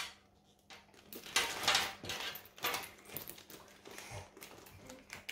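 A bag strap's metal clasp hardware clinking and scraping as the strap is handled and clipped onto a bag. It comes as an irregular string of light clicks and rustles that starts just under a second in.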